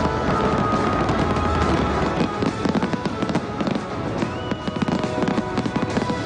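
Fireworks display going off in many quick bangs and crackles over loud music, the bangs thickest from about two seconds in.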